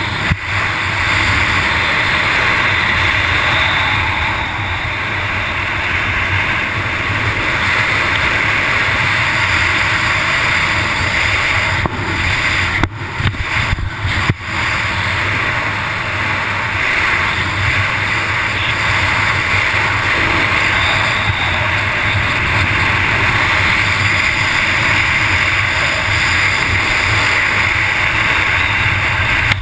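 Steady rush of wind buffeting an action camera's microphone as the parasailer is towed at speed behind the boat, breaking off briefly twice about halfway through.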